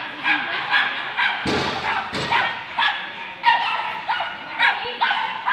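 A dog barking over and over in quick succession, nearly three short barks a second, with two brief thuds about a second and a half and two seconds in.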